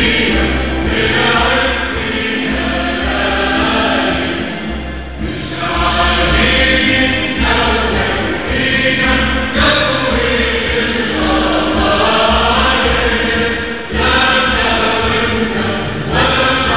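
A choir singing with instrumental backing, over a deep bass that moves in steady blocks.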